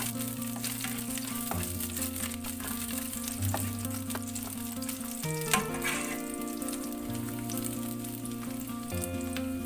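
Garlic slices sizzling in hot sesame oil in a nonstick wok while a plastic spatula stirs them, with small scraping clicks and a sharp knock about halfway through. Background music plays underneath.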